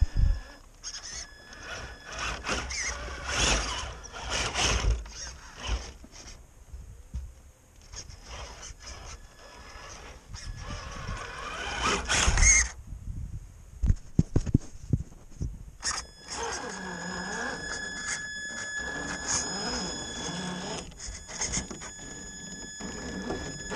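Traxxas TRX-4 RC crawler's electric motor and geared drivetrain whining as it crawls over a log, its tyres scraping and knocking on bark and snow. A cluster of sharp knocks comes around the middle, and a steady high whine holds through the last third.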